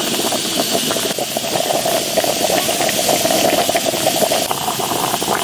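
Red chili hot pot broth boiling in a metal pot: a dense, steady bubbling crackle over a constant hum.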